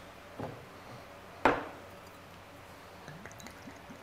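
Green glass soju bottle being handled and poured into a small shot glass. One sharp knock about a second and a half in, then faint clinks near the end.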